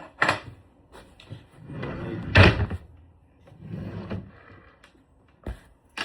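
A string of knocks and bangs of something being opened, shut and handled: a sharp knock at the start, the loudest bang about two and a half seconds in, and a short thud near the end.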